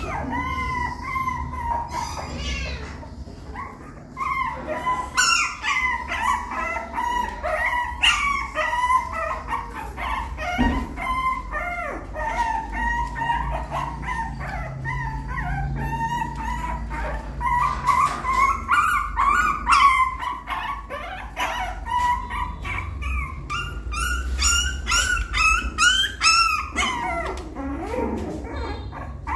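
Young puppy whining and crying in an almost unbroken string of high-pitched whimpers and yelps, with a quicker run of cries near the end. These are the distress cries of a puppy cut off from its littermates while trying to climb back into the nest.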